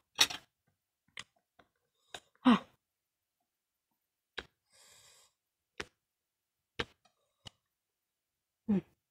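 Eating at a table: sporadic sharp clicks and taps, about one a second, with two short falling sighs, one about two and a half seconds in and one near the end, and a brief soft hiss around the middle.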